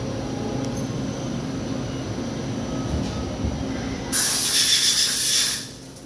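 Daewoo Puma CNC lathe running with a steady machine hum. About four seconds in, a loud hiss cuts in for about a second and a half and then stops.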